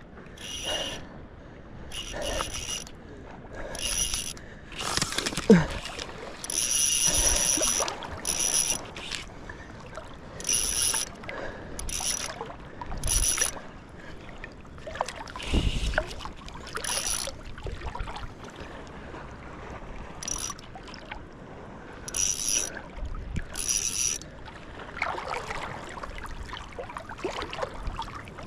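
A fishing reel's drag paying out line in repeated short bursts, a ringing, ratcheting whine, as a hooked tarpon pulls against it.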